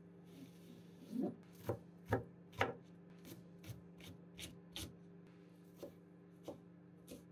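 Kitchen knife chopping a Japanese long green onion, then green leaves, on a white cutting board: a run of sharp knife strikes on the board, the four loudest in the second and third seconds, then lighter taps about every half second. A steady low hum runs underneath.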